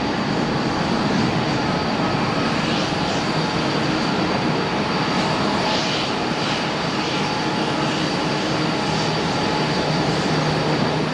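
Jet airliner engines running, a steady rushing noise with a thin, high, steady whine over it.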